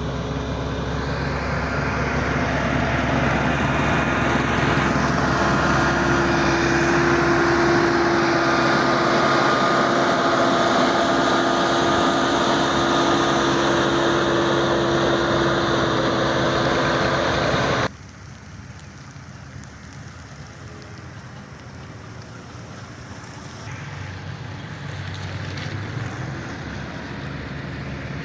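Road roller's diesel engine running steadily under load with a constant hum. About two-thirds of the way through, the sound cuts off abruptly to a much quieter engine drone.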